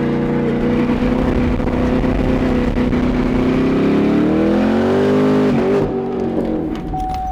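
Car engine held at high revs during a spin, its pitch holding steady, climbing about five seconds in and then falling away near the end.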